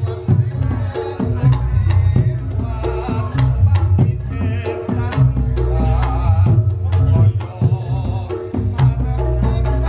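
Reog Ponorogo gamelan ensemble playing: quick hand-drum (kendang) strokes over a steady heavy low bass, with a wavering pitched melody line above.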